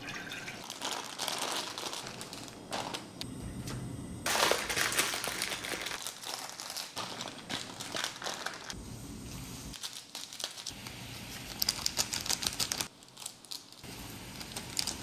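Plastic instant-ramen packets and seasoning sachets crinkling and being torn open, in several short clips that cut in and out abruptly.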